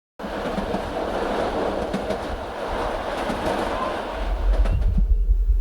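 Sound-effect opening of a dance routine's edited music mix: a dense rushing rumble like a passing train cuts in suddenly. About four seconds in it gives way to a deep, throbbing bass pulse like a heartbeat.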